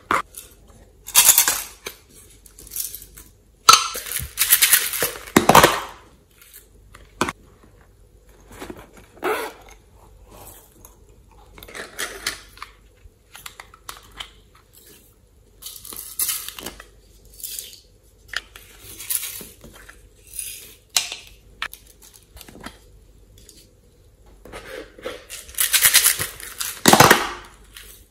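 Hands handling hard plastic containers and adding things to a glass dish: irregular clicks, taps, scrapes and rustles, with louder bursts about a second in, around four to six seconds in, and near the end.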